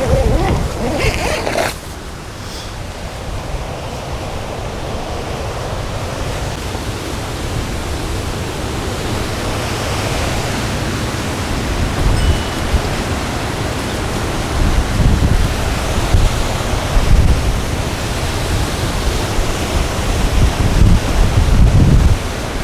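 Strong gusty wind rushing and buffeting the microphone with a low rumble, swelling in several gusts through the second half.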